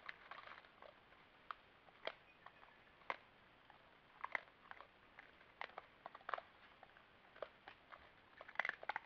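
Collared peccaries chewing corn kernels: irregular sharp crunches and cracks, several a few seconds apart and a quick run of them near the end.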